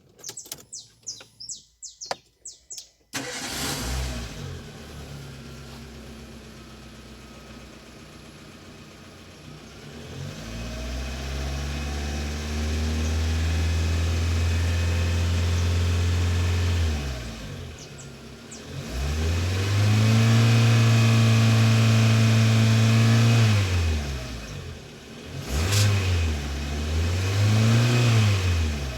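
Renault Sandero 1.0 16v four-cylinder engine starting about three seconds in and idling, then revved up and held high twice, with two short throttle blips near the end. Bird chirps come before the engine starts.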